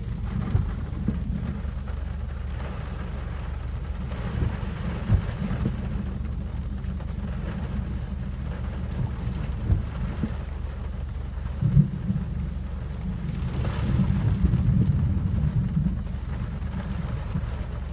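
Rain falling on a car, heard from inside through a slightly open window, with scattered heavier drops tapping on the car body. Thunder rumbles low throughout, swelling louder for a couple of seconds about three-quarters of the way in.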